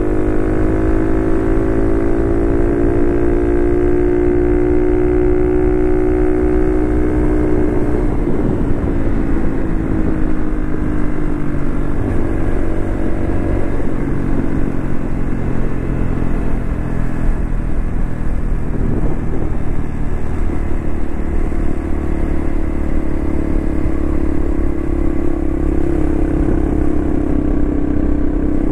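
Honda Cross Cub JA45's 110cc single-cylinder engine running at cruising speed, with a low rumble of wind and road under it. The engine note climbs gently for several seconds, drops about eight seconds in as the throttle eases, and holds steady later on.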